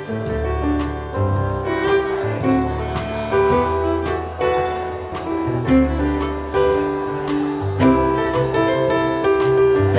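Live contra dance band playing a dance tune on fiddle and keyboard, with a bass line and a steady beat.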